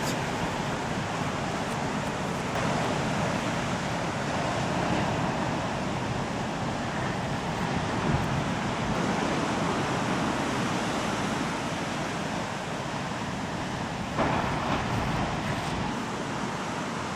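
Ocean surf from big Atlantic waves, a steady rushing noise that swells a little about fourteen seconds in.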